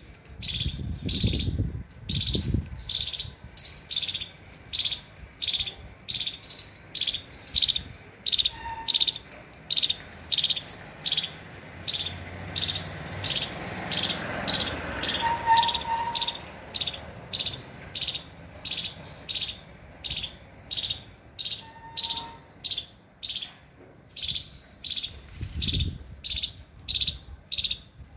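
A high chirp repeated steadily about twice a second, from a calling animal. There are brief low rumbles about a second in and again near the end.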